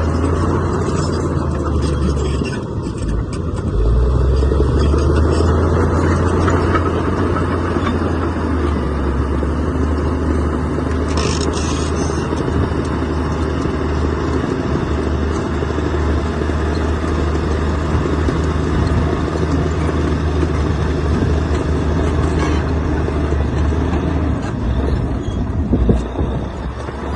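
Heavy diesel earthmoving machinery running steadily with a low engine drone; the engine note drops briefly, then picks up again about four seconds in and holds.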